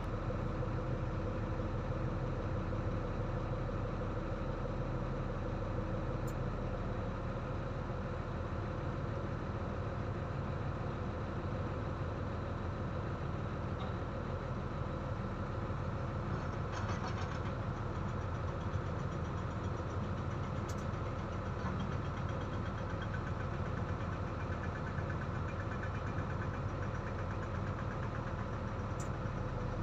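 Heavy diesel engine running steadily at a low, even speed.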